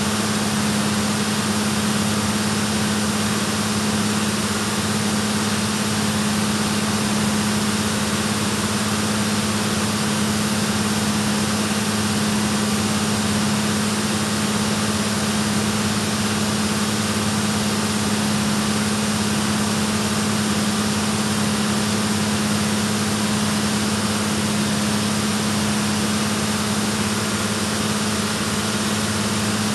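HHO (oxyhydrogen) torch flame burning with a steady hiss as it cuts steel, over a steady low hum.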